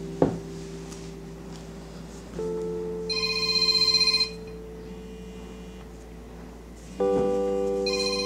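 Mobile phone ringtone trilling, once about three seconds in and again near the end, over soft sustained background music. A single sharp click, a laptop key press, comes just after the start.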